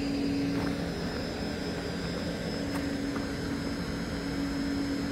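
A steady, engine-like mechanical drone with a constant low hum.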